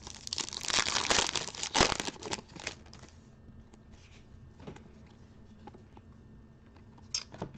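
A foil trading-card pack wrapper being torn open and crinkled for about three seconds, then a few faint clicks and rustles of cards being handled.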